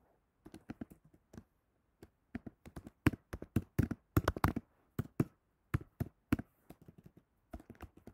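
Typing on a computer keyboard: a quick, irregular run of keystroke clicks, loudest and densest about three to four and a half seconds in.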